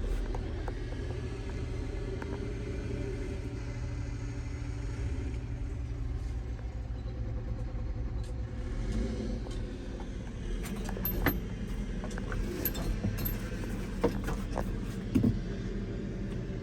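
New Holland B95 backhoe loader's diesel engine idling steadily, with scattered light clicks and rattles over the low rumble and a few sharper ticks in the second half.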